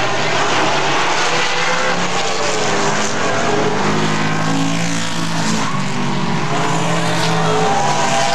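Several super late model stock cars racing at speed, their V8 engines running at high revs. The engine notes overlap and rise and fall in pitch as the cars pass and lift off for the turns.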